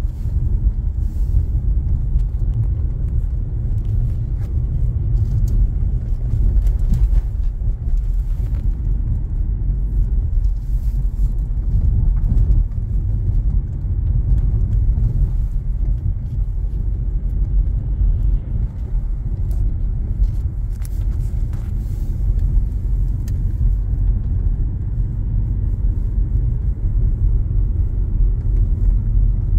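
A moving car heard from inside the cabin: a steady low rumble of tyres and engine.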